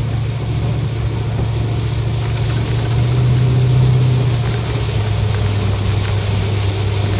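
Vehicle engine idling with a steady low hum that swells slightly about three seconds in, with rain hissing against the vehicle.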